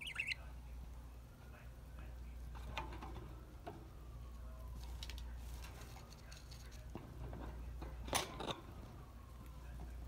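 Budgies pecking and nibbling at a dried corn treat: scattered small clicks and crunches, loudest in a short cluster about eight seconds in, with a brief chirp at the very start over a steady low hum.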